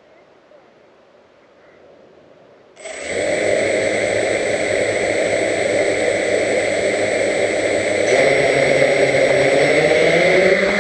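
Quadcopter motors and propellers spin up abruptly about three seconds in and then run loud and steady with a whine. The pitch rises about eight seconds in as the throttle is raised for lift-off.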